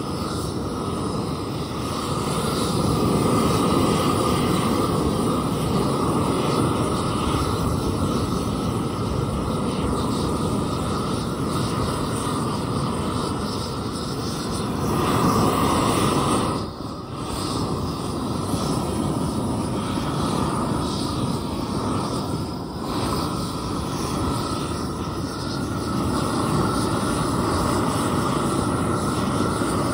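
Propane torch on a long wand burning steadily with a loud, even rush of flame as it heats thin mild-steel plates for heat bluing, dipping briefly once a little past the middle.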